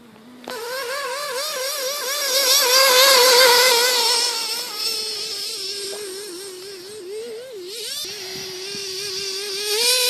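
Radio-controlled car's motor running with a high whine whose pitch wavers up and down rapidly, loudest about three seconds in.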